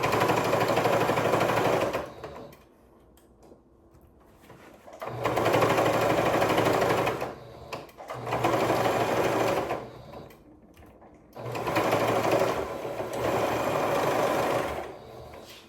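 Electric sewing machine stitching in four runs of two to four seconds each, stopping briefly between runs.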